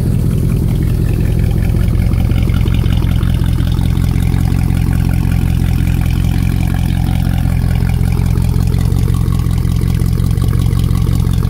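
Mercedes C63 AMG V8 idling steadily through a custom exhaust with the catalytic converters and resonator removed and only the rear mufflers left, heard at the quad tailpipes. Pretty loud just at idle.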